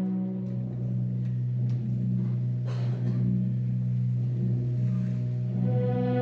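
Orchestral music in a quiet, held passage: a sustained low chord with a soft ringing, gong-like swell and a brief hiss about three seconds in, plus a few faint knocks early on.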